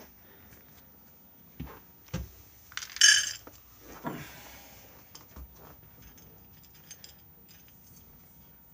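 Dishes and utensils clattering while cat food is being prepared. There are a couple of knocks, then a loud ringing clink about three seconds in, followed by a thump and a few light taps.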